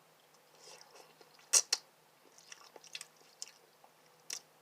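A person chewing a mouthful of instant noodles, with a few sharp, wet mouth clicks and smacks over quiet chewing.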